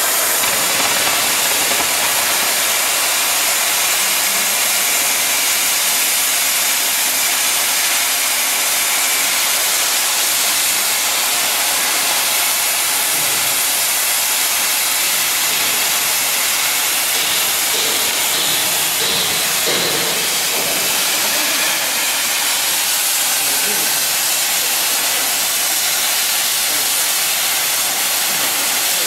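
Oxy-fuel cutting torch on a CNC gantry cutter giving a loud, steady hiss as its oxygen jet cuts through steel plate.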